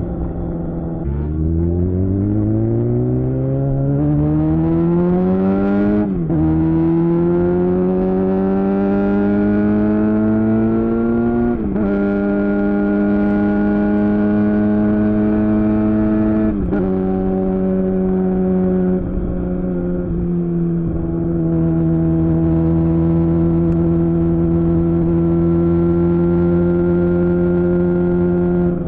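A 2007 Suzuki GSX-R600's inline-four engine, through a Yoshimura R11 exhaust, accelerating through the gears. The revs climb steadily and drop sharply at three upshifts, then the engine holds a steady note at cruising speed for the last ten seconds or so.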